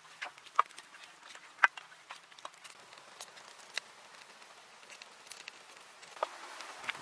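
Hands massaging marinade into raw chicken legs in a pan, making irregular sticky smacks and clicks. They are loudest and most frequent in the first two seconds, then thin out to occasional ticks.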